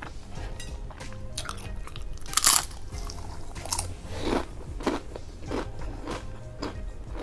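Tortilla chips being bitten and chewed. There is one loud crunch about two and a half seconds in, then regular chewing crunches roughly every half second.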